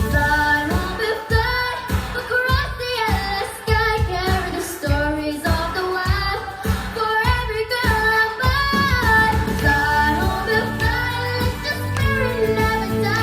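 Background song: students singing a melody over a musical accompaniment.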